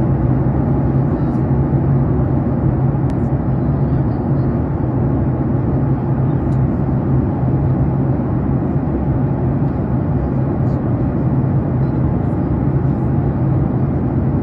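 Steady cabin noise of a jet airliner at cruise altitude: an even rush of engine and airflow noise with a low hum running under it.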